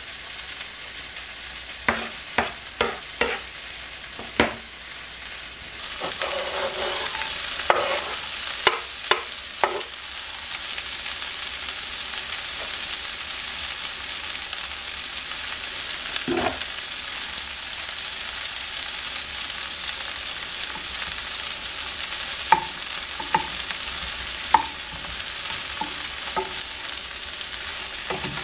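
A few sharp strokes of a chef's knife chopping garlic on a wooden cutting board, then from about six seconds in a steady sizzle of broccoli and garlic frying in oil in a skillet, with scattered clicks of a wooden spoon stirring against the pan.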